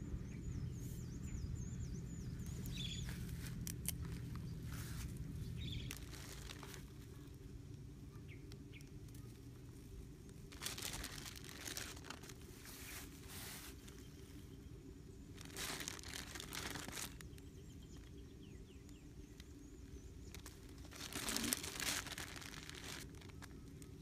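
Thin plastic bag crinkling in three short spells of rustling as a hand takes bait out of it, over a steady low outdoor hum. Faint bird chirps in the first couple of seconds.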